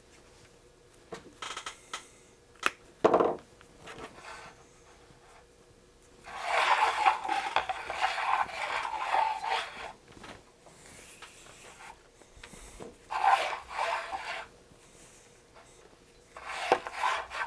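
A spool of test wire handled on a wooden workbench, wire pulled off it, giving bursts of rubbing and scraping. A few sharp clicks come in the first few seconds, and the longest scraping burst is near the middle.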